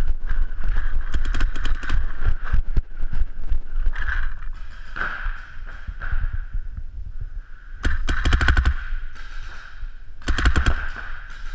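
Paintball markers firing rapid strings of shots, about ten a second, in three bursts: a longer one about a second in, then two short ones near the end.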